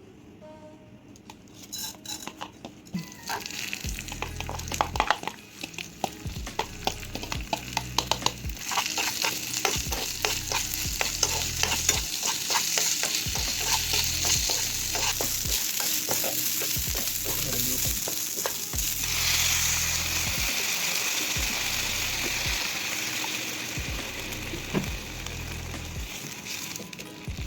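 Food frying in oil in a pan, sizzling while a spatula stirs and scrapes it with many quick clicks. The stirring clicks stop about two-thirds of the way through, and a steady sizzle goes on.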